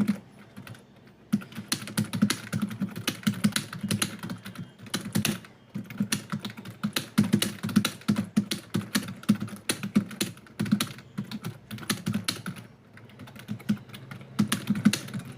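Fast typing on a computer keyboard: rapid, uneven keystroke clicks, pausing for about a second near the start and slowing briefly a couple of seconds before the end.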